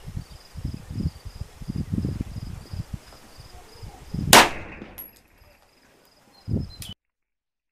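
A single 9mm pistol shot from a Beretta 92FS firing a 115 gr Hornady XTP round, a sharp loud crack about four seconds in with a short ringing tail. Before it there are irregular low rumbles, with a faint steady insect chirring throughout.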